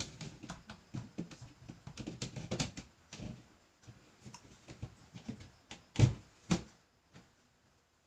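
Irregular knocking and clattering of household items being handled and set down, with two louder thumps about six seconds in.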